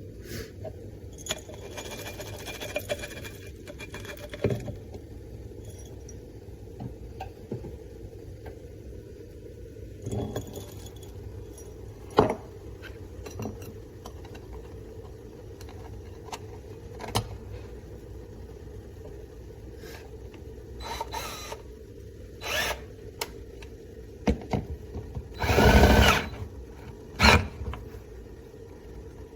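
Scattered clicks and knocks, a few of them louder near the middle and toward the end, over a steady low hum.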